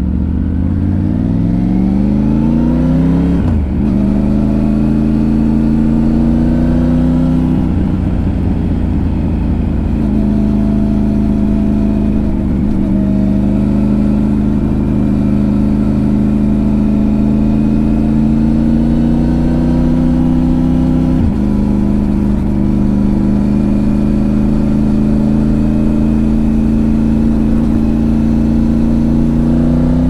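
Triumph Tiger 900 Rally Pro's three-cylinder engine pulling the bike along. The note climbs steeply at first, then breaks off and drops sharply about three and a half, eight and twenty-one seconds in, and between those drops runs steadily with the revs slowly rising.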